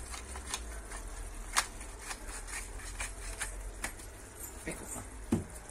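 Glass pepper grinder being twisted by hand over a pot, giving irregular sharp clicks, with a faint low hum underneath.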